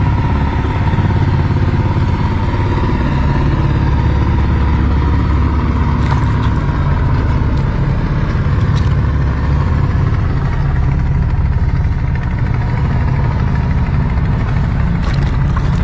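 A boat's engine running steadily at a constant low throb.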